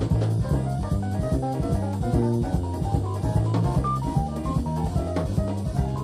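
Jazz-fusion band playing live, heard from a cassette tape recording: drum kit and electric bass driving under a line of quick single melody notes.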